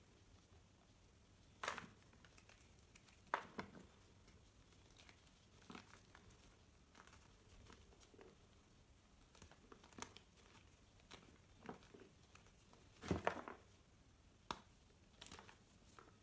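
Chunks of reformed gym chalk crumbled and crushed between bare hands: dry crunches and crackles at irregular intervals, the loudest a cluster about 13 seconds in.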